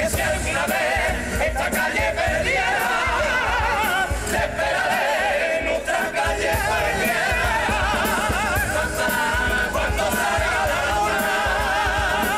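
A Cádiz carnival comparsa chorus singing its presentación song in several voice parts with vibrato, backed by Spanish guitars and drums keeping the beat.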